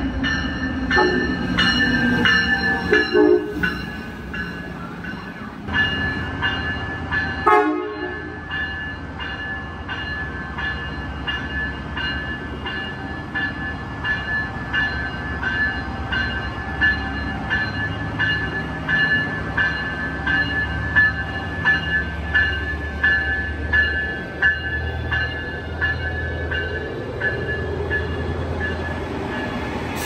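Train horn sounding a chord in the first few seconds and a short blast about eight seconds in. Then a train runs past with a steady rhythmic clatter, about two beats a second.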